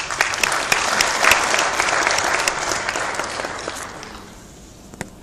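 Audience applauding, many hands clapping, then the applause dies away about four seconds in.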